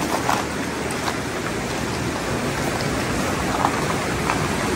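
Fast-flowing open water of the Zanskar river rushing past the edge of the ice, a steady wash of noise, with a few faint footsteps crunching on the snow-covered ice.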